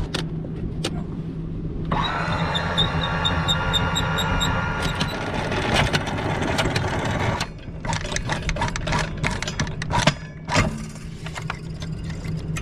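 Twin inboard boat engines running at idle just after being started. About two seconds in, a louder, rough mechanical noise with fast ticking joins them for about five seconds, then stops, leaving the idle and a few clicks and knocks.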